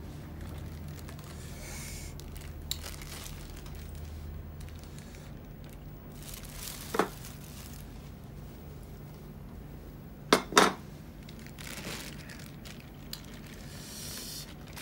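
Thin clear plastic food bag crinkling and rustling as it is untied, opened and shaken out into a bowl, with a few sharper, louder crackles about halfway through and again a few seconds later.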